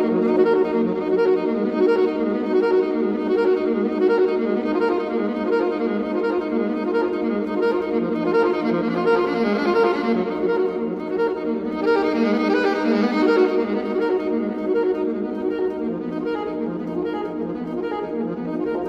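Music of slow, sustained notes held and layered together, growing brighter in the middle.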